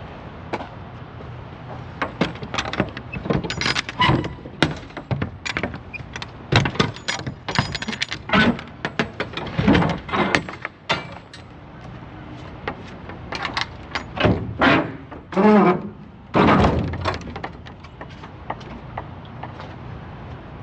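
Metal clanks and rattles of a semi-trailer's rear swing-door latches: the lock handles and locking bars are unlatched and the heavy doors are swung open. The knocks come in a dense, uneven run, loudest in the second half.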